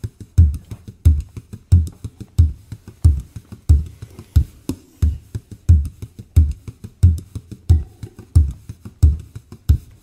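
Bodhrán (Irish frame drum) played solo in a steady rhythm: a deep accented stroke about every two-thirds of a second with lighter strokes in between.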